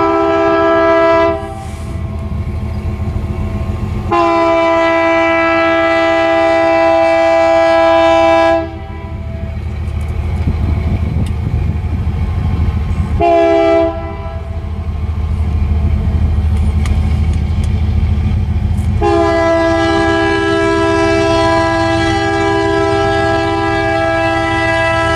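Diesel freight locomotive's multi-note air horn sounding the grade-crossing signal: a long blast that ends about a second in, a second long blast, a short one, then a last long blast. A low rumble from the approaching train runs underneath.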